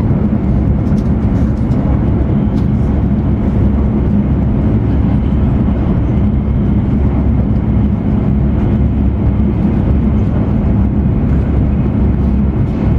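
Interior running noise of an E2 series Shinkansen at high speed: a steady, loud low rumble with a constant hum underneath, heard inside the passenger cabin.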